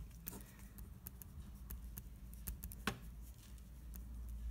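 Faint scratches and a few light taps of a pen writing out a line of working, over a low steady hum.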